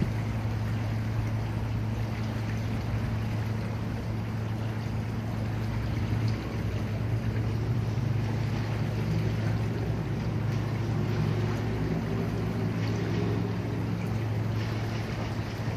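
A motor running steadily: an even low hum over a wash of noise.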